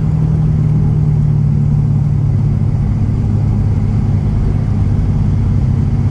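Holden SS ute's cammed 5.7-litre V8 with a 3-inch exhaust cruising at steady highway speed, heard from inside the cabin as a steady low exhaust drone with road noise.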